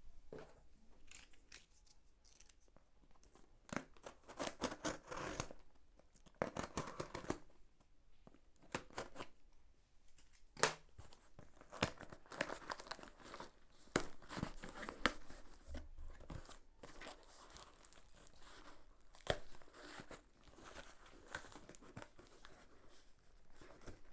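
A cardboard box being torn open by hand: a series of short rips and crinkles of paper and cardboard, with a few sharp snaps.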